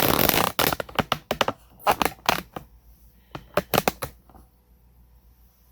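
A dense clatter of clicks and rustling, then scattered sharp clicks and taps over the next few seconds, from things being handled on an electronics workbench.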